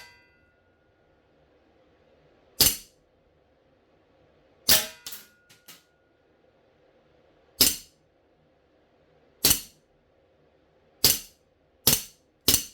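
CO2 airsoft pistol, its gas heated to about 58 °C, fired about seven times at irregular intervals, each shot a sharp crack; a few small clicks follow the second shot.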